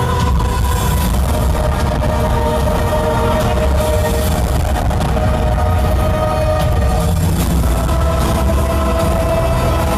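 Hardstyle music played loud over a festival sound system: held synth chords that shift every few seconds over a heavy, steady bass rumble.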